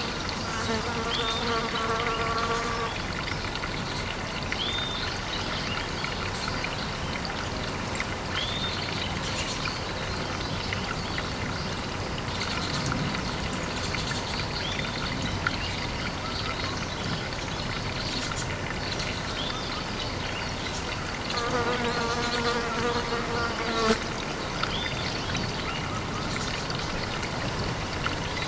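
Pond ambience: a steady trickle of water, with a flying insect buzzing close by twice, near the start and again a little after twenty seconds in. A short, high, rising chirp repeats every few seconds.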